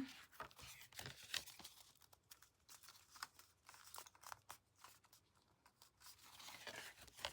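Faint rustling and light taps of cardstock being slid into position and pressed down by hand, with a slightly louder rustle near the end.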